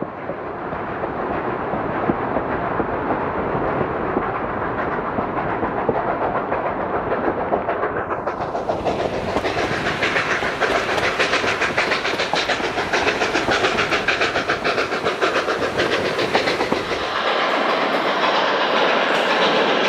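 Narrow-gauge steam train rolling along, heard from a riding coach: a continuous rumble with a clatter of wheels on the rails. It fades in at the start, grows brighter and busier about eight seconds in, and the low rumble drops away near the end.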